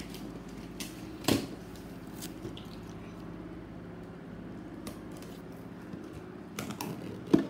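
A steady low hum with scattered handling clicks and knocks: a sharp one about a second in and a quick cluster near the end, the loudest just before it ends.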